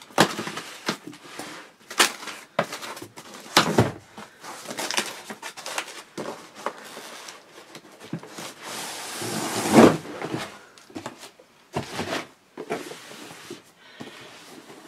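A taped cardboard box being opened by hand: sharp snips and rips of packing tape and cardboard, with rustling and scraping between them. About nine to ten seconds in comes one longer tearing scrape, the loudest sound.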